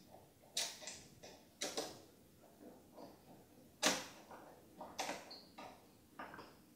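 Hand screwdriver driving a screw through a metal mount into a plastic case part, with a few sharp clicks and small creaks about a second apart, the loudest about four seconds in.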